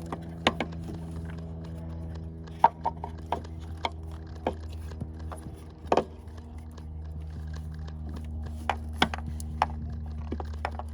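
Irregular sharp clicks and clacks of hands and tools working an ignition coil loose in a Toyota Camry V6 engine bay, over a steady low hum. The loudest click comes about three seconds in and another about six seconds in.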